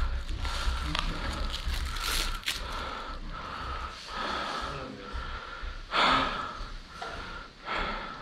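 An electronic airsoft objective device beeping, short beeps at one pitch repeating about twice a second. Footsteps crunch over loose brick rubble, the loudest about six seconds in.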